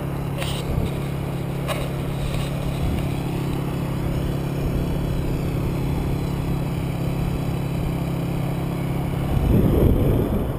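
Dirt bike engine idling steadily, with no revving. Near the end the idle stops abruptly and a short, louder burst of rumbling noise takes its place.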